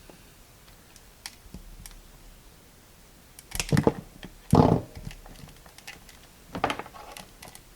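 Cutters snipping through the power supply's cable: three short, sharp cuts about three and a half, four and a half and six and a half seconds in, the middle one loudest, with faint clicks of handling between.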